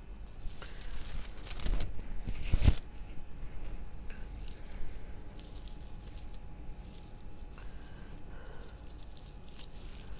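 Raffia strands rustling and crinkling as they are handled and gathered into a bundle, louder for a moment about two seconds in, then softer.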